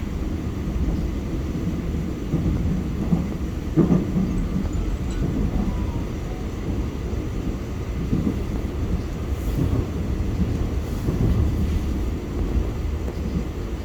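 Subway train running along the track, heard from inside the car: a steady low rumble of wheels and running gear, with one sharper knock about four seconds in.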